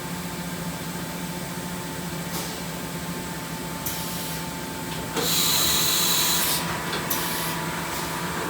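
Makino F8 vertical machining center running with a steady hum, broken by short bursts of hissing, the loudest lasting about a second and a half just past the middle.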